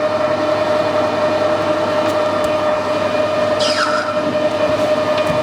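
Metal lathe running with a steady hum and a strong steady whine, with a short falling squeal about three and a half seconds in.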